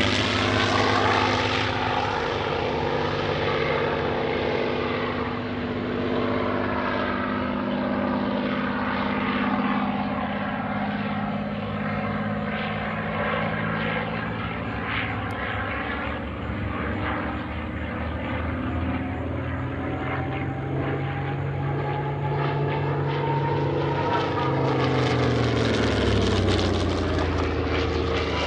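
A P-51D Mustang and an A6M2 Zero, piston-engined propeller fighters, droning overhead through a display routine. The engine note drops in pitch as a plane passes near the start, then climbs over the last few seconds and drops again at the very end as another passes.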